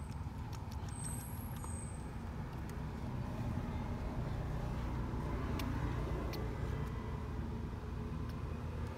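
Low, steady rumble of a distant engine, growing a little louder about three and a half seconds in.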